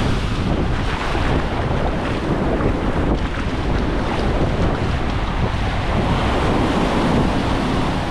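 Ocean surf breaking and washing up the sand at the water's edge, a steady rush, with wind buffeting the microphone.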